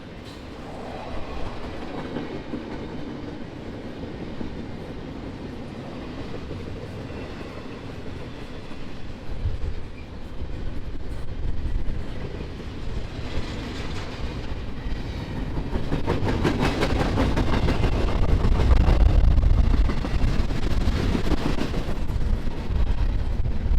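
Freight train rolling past: a low rumble that grows louder from about halfway, with rapid wheel clatter over the rail joints taking over from about two-thirds of the way in.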